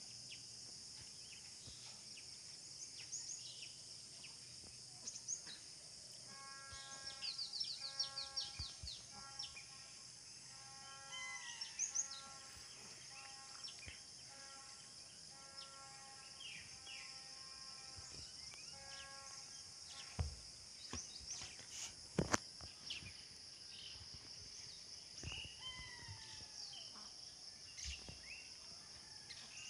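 Rural outdoor ambience: a steady high insect drone with scattered bird chirps and calls. For about twelve seconds from around six seconds in, a distant pitched note repeats over and over, and two sharp knocks come about two seconds apart a little past the middle.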